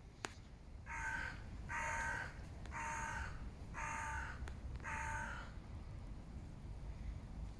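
A bird calling five times in an even series, about one call a second, each call lasting about half a second.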